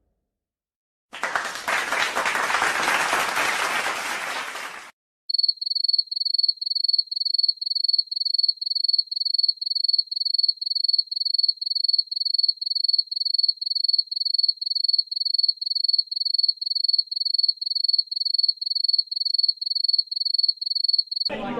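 About four seconds of dense, hissing noise like applause, then a cricket chirping effect: one high, steady chirp repeated about twice a second for some sixteen seconds, the 'awkward silence' crickets used in YouTube edits.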